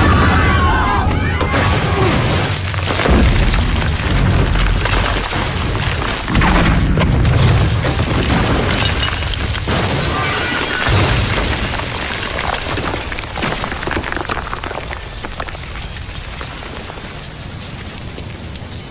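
A string of heavy explosions blowing up a building, several deep booms a few seconds apart, with the rumble dying away toward the end.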